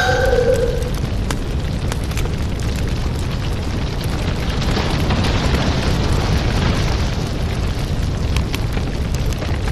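Sound effect of a deep, continuous rumble with scattered crackles and pops, explosion-like.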